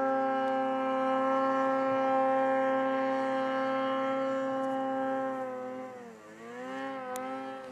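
Snowmobile engine running at high, steady revs as the sled climbs the slope. About six seconds in the pitch dips and wavers as the sled goes over the ridge, then the sound fades.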